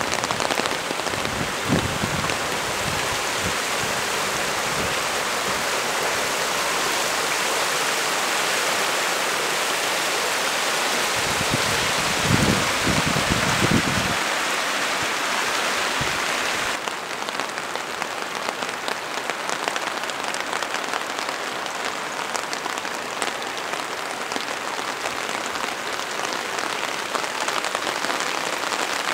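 Heavy downpour: a steady, dense hiss of torrential rain, with a few low thumps in the first seconds and again about twelve seconds in. About seventeen seconds in, the sound drops slightly and turns thinner.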